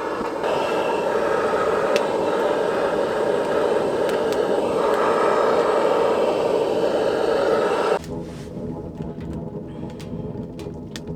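Butane torch running with a steady hiss as it is held on damp firewood in a wood stove that will not catch; it cuts off suddenly about eight seconds in, leaving a quieter background with scattered small crackles.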